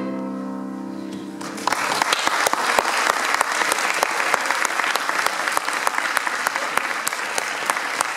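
The last notes of the song fade out, then audience applause starts about one and a half seconds in, with sharp, close hand claps standing out from the general clapping.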